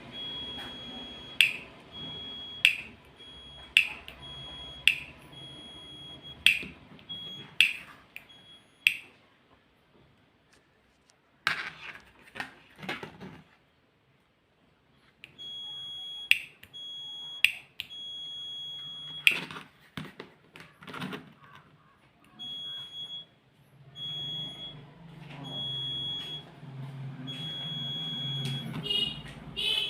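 Piezo buzzer of a battery-less solar-powered doorbell beeping at a single high, steady pitch in short on-off spells, broken by sharp clicks. It falls quiet for several seconds midway, then starts beeping again, in shorter beeps near the end.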